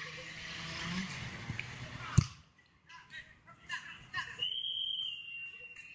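A football kicked hard with one sharp thump about two seconds in, after a couple of seconds of rushing noise. Near the end comes a referee's whistle in one long, steady blast, with players' voices in between.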